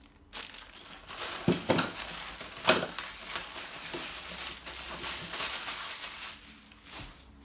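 Plastic packaging crinkling and rustling as parts are pulled from their wrapping, with a couple of sharp clicks or knocks about one and a half and two and a half seconds in.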